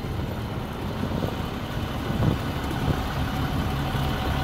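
Type 3 wildland fire engine's truck engine idling steadily, a low even drone, with the pump not yet throttled up.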